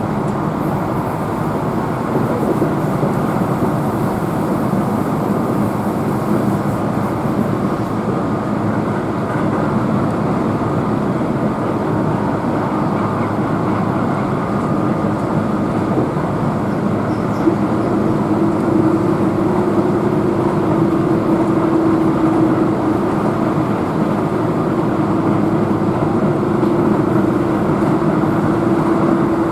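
Keihan electric train running at speed, heard from inside the passenger car: a steady rumble of wheels on rail with motor hum. A steady mid-pitched tone comes in a little past halfway and holds.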